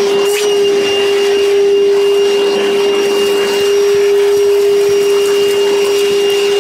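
Vacuum cleaner running at a steady pitch, with a high whine over its motor hum, hoovering up dust and debris around a newly fitted consumer unit.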